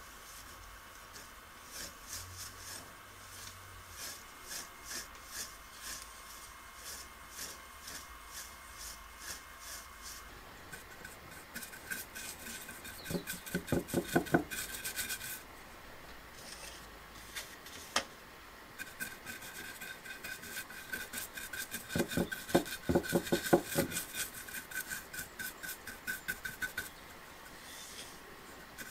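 A stiff bristle brush scrubbing in quick repeated strokes: first stirring pigment and alcohol in a clear dish, then working the stain onto rough carved wood, with louder scrubbing in the second half and a brief pause in the middle.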